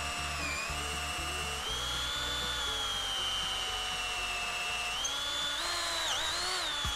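Makita cordless drill/driver boring a hole through a soft, low-density block of purple cypress. Its motor gives a steady whine under load, rising slightly in pitch a couple of times with a brief dip near the end.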